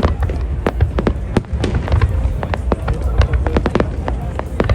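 Fireworks display going off in quick succession: many sharp bangs and crackles, several a second, over a continuous low rumble.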